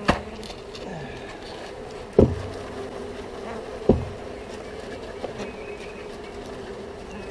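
Honeybees buzzing steadily around an open top bar hive, with three sharp knocks as the bee package is banged and shaken to drop the bees into the hive.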